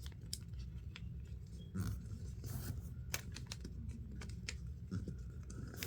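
Origami paper being folded and creased by hand: scattered soft crinkles and clicks over a low steady hum.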